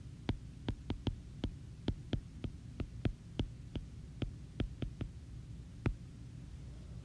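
Stylus tip tapping on a tablet's glass screen while handwriting words: about twenty short, sharp, irregularly spaced clicks, stopping about a second before the end, over a steady low hum.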